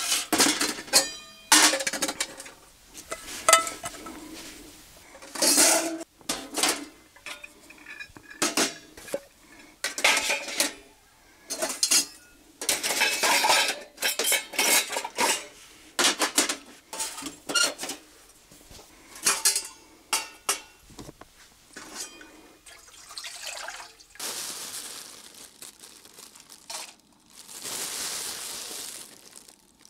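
Camping cookware clattering and clinking: a pot, its lid and utensils knocked and set down over and over while nurungji (scorched-rice porridge) is made. Near the end there are a few seconds of steady hissing.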